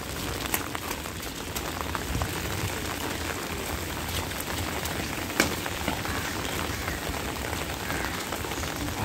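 Steady rain falling on wet tiles, a continuous hiss with scattered light patters. A single sharper tap stands out about five and a half seconds in.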